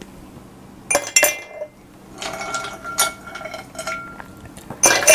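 Ice cubes dropped into an empty glass beer mug, clinking against the glass with short ringing tones. The loudest clinks come about a second in and near the end, with lighter clinking between.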